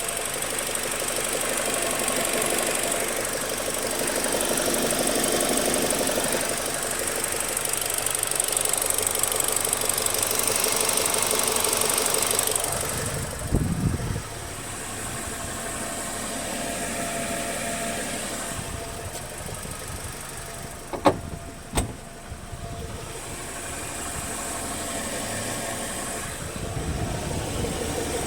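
BMW 116i E87 four-cylinder petrol engine running warm, a steady mechanical running noise of the kind the title puts forward as a concern. About halfway through there is a low thump and the sound drops in level. Two sharp clicks follow a little later.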